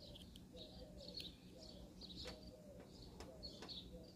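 Near silence, with faint birds chirping repeatedly in the background.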